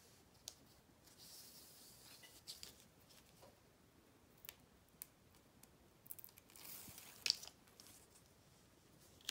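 Faint rustling and peeling of the paper backing being pulled off double-sided tape, with a few light clicks, the sharpest about seven seconds in.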